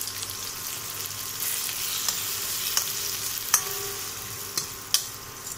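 Chopped tomatoes and browned onions sizzling in oil in a stainless steel kadai as a spatula stirs them, with several sharp clicks of the spatula against the pan.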